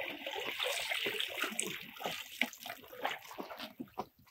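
Shallow water sloshing and splashing around legs wading out through it, with small drips and ticks, dying away near the end.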